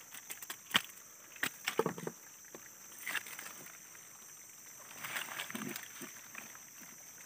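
Scattered knocks and scrapes of a net prawn trap and its rope being handled against the hull of a small boat: a few sharp clicks in the first three seconds, then softer rustling and handling noise.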